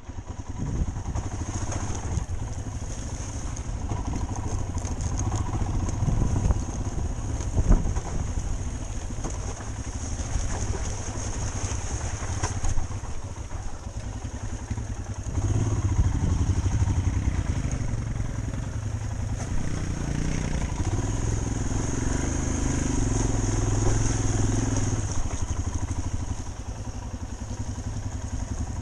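Motorcycle engine running on a rough, muddy dirt track, recorded from the rider's onboard camera, with a few sharp knocks from the bike jolting over rocks. The engine note comes up and grows stronger about halfway through.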